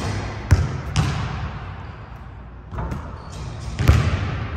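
A basketball bouncing on the court a few times at uneven intervals, with a quieter stretch in the middle; each bounce rings on in the echoing gym hall.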